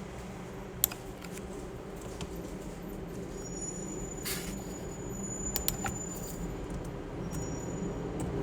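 A few light clicks and taps, the loudest about a second in, over a steady low rumble.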